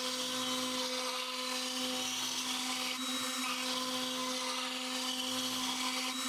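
X-Carve CNC router's spindle running steadily with a constant whine as its small bit carves shallow concentric circle grooves into a Tasmanian oak blank.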